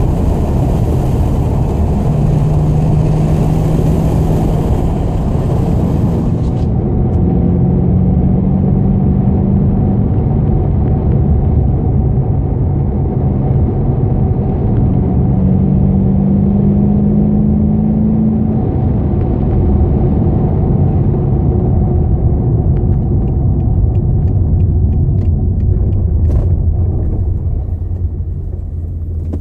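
Holden VE SS 6.0-litre V8 with a full XForce exhaust rumbling loudly under way, its note rising slowly in pitch several times as the car gathers speed. A high hiss over it cuts off suddenly about six seconds in.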